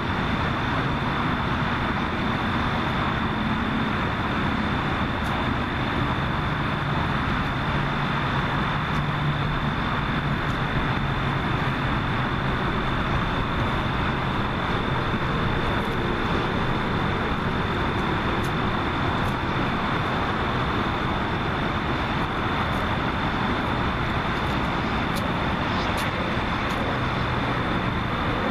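Steady outdoor background noise like distant traffic, with a constant thin high-pitched tone over it and a low hum that swells for a few seconds about six seconds in.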